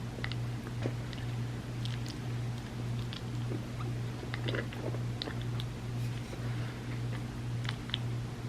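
Close-miked chewing and small wet mouth clicks from someone eating a chocolate trifle layered with mousse, brownie and coconut-pecan filling, over a steady low hum.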